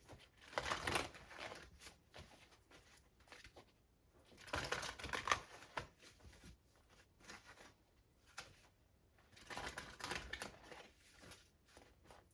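A deck of oracle cards shuffled by hand in three separate bouts, with short pauses between them.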